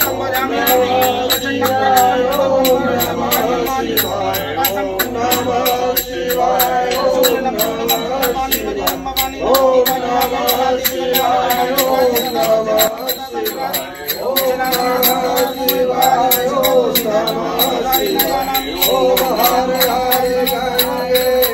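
Devotional singing of a Shiva hymn with melodic voices, over a fast, even beat from shaken rattle-like percussion.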